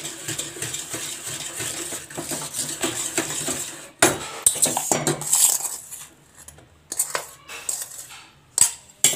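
Wire whisk scraping and clinking against a steel pan, beating ghee and powdered sugar together in fast, steady strokes. About four seconds in the sound breaks off, then comes back as a few louder strokes followed by a quieter stretch with scattered clinks.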